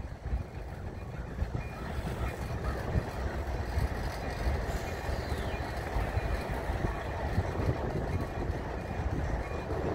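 Diesel locomotives of a Delaware-Lackawanna freight train moving at walking pace: a steady low engine rumble with the noise of rolling wheels.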